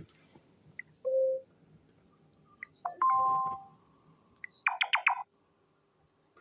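Sony Xperia L4 notification tones played one after another: a short low tone about a second in, a two-note ding-dong chime about three seconds in, and a quick run of bright chiming notes near the end. A tiny blip comes just before each tone.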